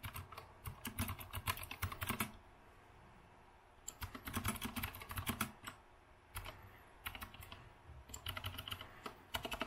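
Typing in bursts on an Azio Retro Classic (RCK) mechanical keyboard with round typewriter-style keycaps: very clicky and clacky keystrokes, with a short pause about two seconds in.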